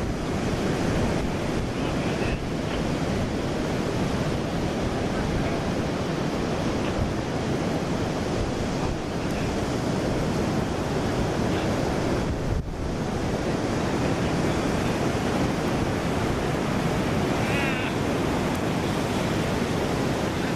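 Steady wind buffeting the microphone over the wash of ocean surf on a beach, with a brief dip about halfway through.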